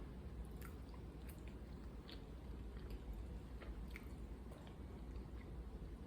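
A person chewing food close to the microphone, with small wet clicks and smacks scattered every half second or so over a steady low hum.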